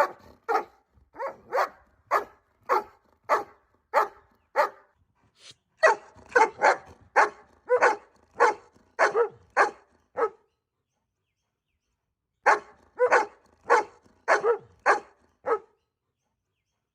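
A dog barking in runs of short, sharp barks, about two a second, with a pause of about two seconds before the last run.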